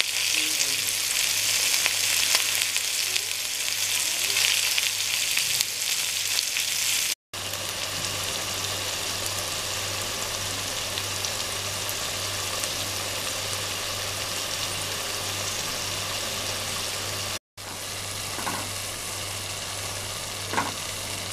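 Oil sizzling steadily in a pan: spiced okra pieces frying, then the mutton and tomato curry cooking, a steady hiss over a low hum. The sound drops out briefly twice.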